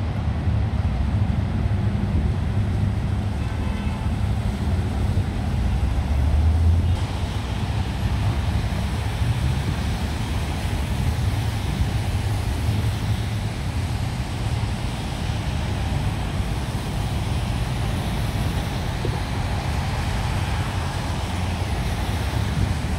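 Road traffic on wet pavement: a steady low rumble of passing cars with tyres hissing on the wet road, swelling louder for a moment about six seconds in.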